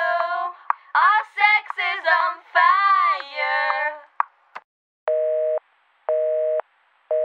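A high-pitched voice singing wordless sliding notes for about four seconds, then a telephone busy signal: three half-second beeps, one each second.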